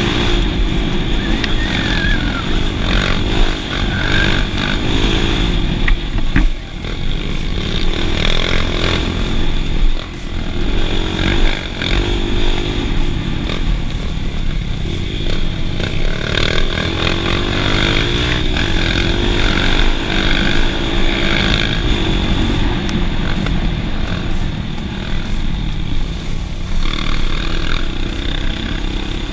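Kawasaki KLX dirt bike's single-cylinder engine running along a dirt trail, its revs rising and falling with the throttle, with a few brief drops as the throttle closes.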